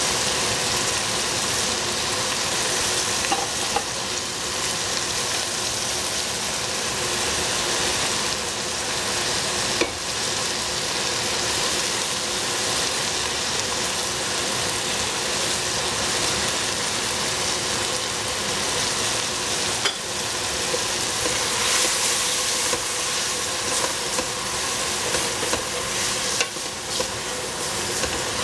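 Green cauliflower stir-frying in a hot pan: a steady sizzle, with a few light clicks of the spatula stirring it.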